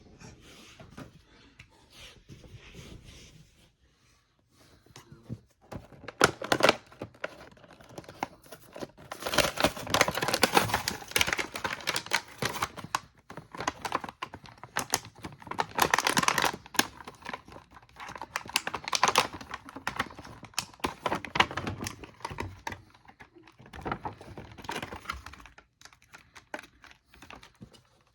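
Plastic and cardboard toy packaging being handled and opened by hand: crinkling, tearing and rapid clicking in dense clusters, busiest in the middle, with quieter handling near the start and end.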